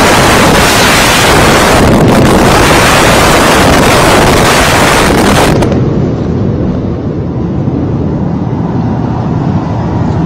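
Supertech twin towers collapsing in a controlled implosion: a loud, dense rumble of falling concrete and debris. About six seconds in it turns abruptly to a quieter, duller low rumble.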